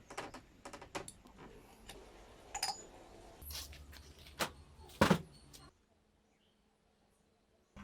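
Scattered light clicks and clinks of small metal parts being handled on a workbench, with a louder double knock about five seconds in. The sound stops abruptly near six seconds.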